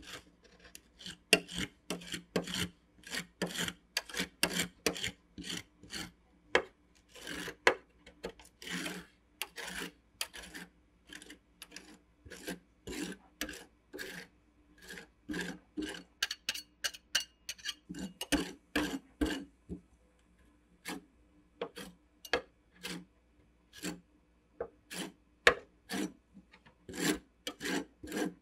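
Metal spatulas scraping and tapping across a steel ice-cream cold plate, spreading and smoothing freezing ice cream into a thin sheet for rolled ice cream. The strokes come quickly and unevenly, thinning out briefly about two-thirds of the way through.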